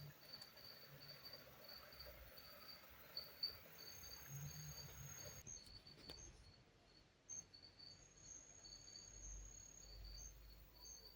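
Faint rainforest insects chirping in a steady pulsing rhythm, about two chirps a second, with a thinner, higher trill coming and going over it.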